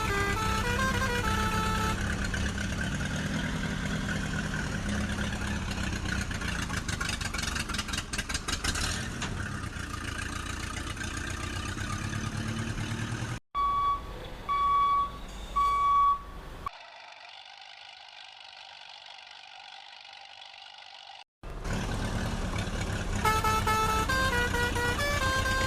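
Cartoon vehicle sound effects: an engine running, with a children's tune at the start and end. Three short horn beeps come about a second apart near the middle, then a thinner steady hum.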